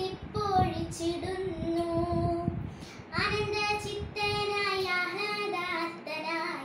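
A young girl singing a verse of a Malayalam kathaprasangam solo, holding long notes that bend in pitch.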